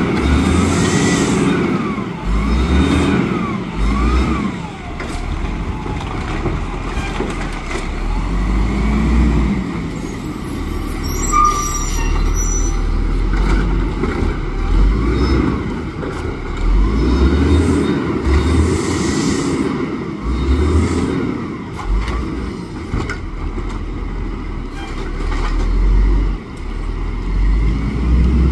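Volvo garbage truck with a Rapid Rail automated side loader: its diesel engine revs up and falls back again and again, in rising and falling sweeps about a second apart, with a few short hisses of air.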